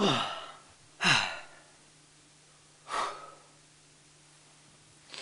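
A man sighing heavily three times: two loud sighs about a second apart that slide down in pitch, then a shorter one about two seconds later. A faint steady hum runs underneath.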